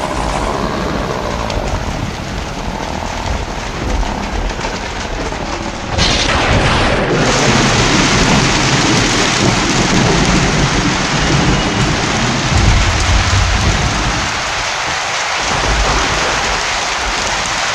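Heavy rain pouring down, a dense hiss that grows louder about six seconds in, with a low rumble underneath through the middle that dies away near the end.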